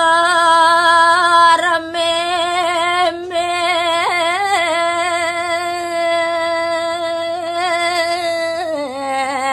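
A woman singing Balinese gaguritan verse (pupuh) solo and unaccompanied, holding long notes with a wavering ornamented turn about four seconds in, then sliding down to a lower note near the end.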